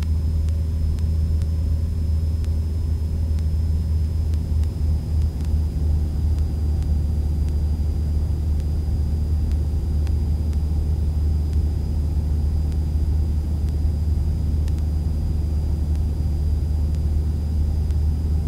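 Cessna 172's four-cylinder piston engine and propeller droning steadily in flight, heard from inside the cabin, with a faint steady high whine over it.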